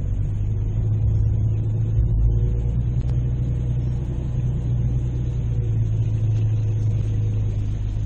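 Tow vehicle's engine running with a steady low hum as it slowly pulls the kayak trailer up the launch ramp.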